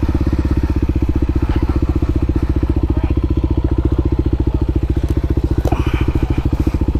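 Single-cylinder motorcycle engine running at steady revs while riding, with a fast, even pulse.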